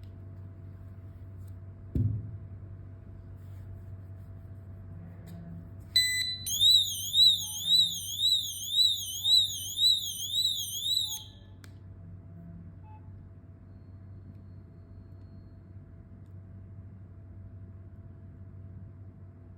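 A Tuya WiFi door/window magnetic sensor's built-in alarm sounds: a short steady high beep, then a high-pitched warbling siren sweeping up and down about twice a second for about five seconds, before it cuts off suddenly. A single thump comes a few seconds before it, over a low steady hum.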